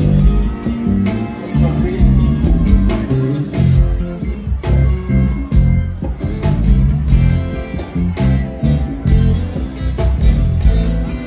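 A live go-go band playing: bass guitar, electric guitar, congas and drum kit laying down a steady, loud, percussive groove.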